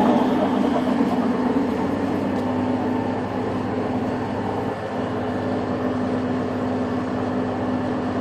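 A large old Craven machine tool running steadily under power, its motor and gearing giving an even hum with several steady tones. It is pretty quiet for an old big machine.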